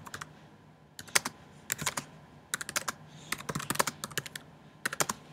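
Typing on a computer keyboard: quick runs of key clicks in about six bursts, with short pauses between them.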